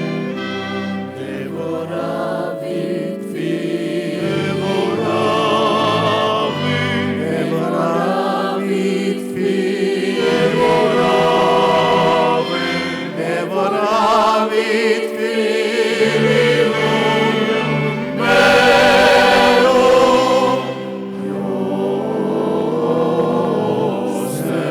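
Choir singing a Lenten motet, many voices with vibrato over held low notes, swelling to its loudest passage about eighteen seconds in before easing back.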